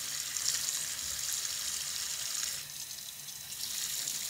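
Kitchen tap running into a stainless steel sink beside a steel pot: a steady splashing hiss of the water stream, which softens for about a second just past halfway.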